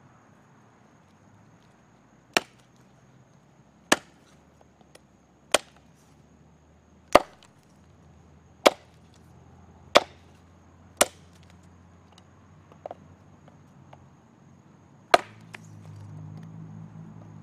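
Elk Ridge parang machete chopping into a wooden branch held across a log: eight sharp chops, about one every one and a half seconds, with a longer gap before the last one.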